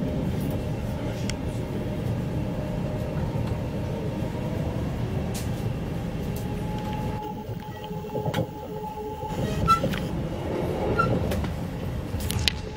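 Passenger train running, heard from inside the carriage: a steady rumble of the wheels on the rails. A faint steady whine comes in midway and again near the end, with a few sharp clicks.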